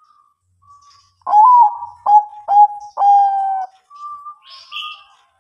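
Bangkok-bred zebra dove (perkutut) cooing: one song of four loud notes over about two and a half seconds, a short rising first note, two clipped notes, then a long drawn-out last note. Softer coo notes come before and after it, and faint high chirps near the end.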